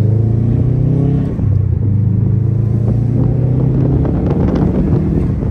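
Subaru WRX STI's turbocharged flat-four engine running steadily while driving, heard from inside the cabin along with road noise.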